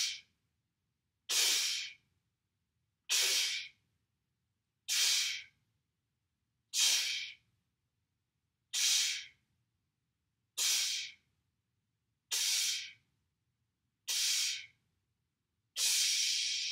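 Slow breath of fire: a man's forceful, hissing exhales, about one every two seconds with quiet inhales between, about ten in all. The last exhale is longer and trails off.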